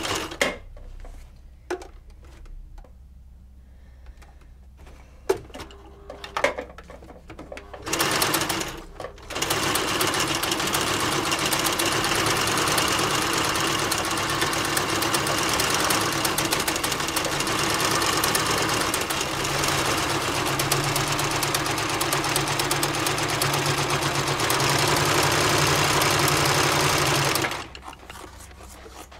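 Electric domestic sewing machine stitching: a short run at the start and another about eight seconds in, with a few faint clicks between, then a long steady run from about ten seconds in that stops shortly before the end.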